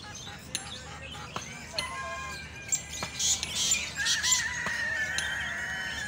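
Several birds calling and chirping, short calls scattered throughout, with one longer, steady high call over the last two seconds.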